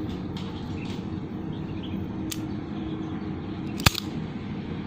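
Automatic wire stripper clamping and stripping the insulation off a charger cable's wire, with one sharp snap about four seconds in and a few faint clicks before it, over a steady low hum.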